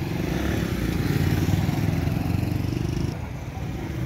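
Eicher 380 tractor's three-cylinder diesel engine running under load as it pulls a trolley heavily laden with logs. Its rapid, even chug builds and then eases off about three seconds in.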